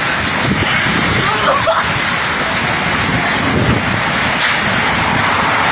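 Tornado wind blowing as a loud, steady rushing roar, with gusts buffeting the microphone.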